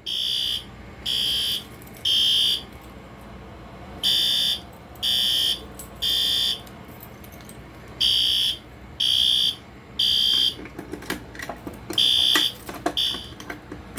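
System Sensor P2WL horn strobe sounding a fire alarm in the temporal-three evacuation pattern after a pull station is pulled: three high-pitched beeps a second apart, a pause, and again. The last round breaks off after two beeps, with a few clicks and knocks near the end.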